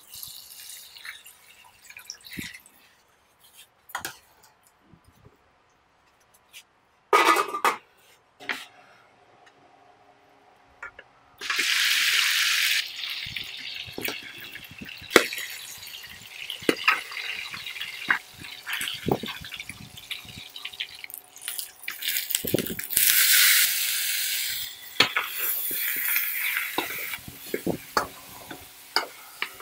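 Cooking sounds: liquid is poured into a pot, then chicken fries in a wok of hot oil. A metal spatula scrapes and clinks against the wok throughout. There are two louder spells of sizzling, about twelve seconds in and again about twenty-three seconds in.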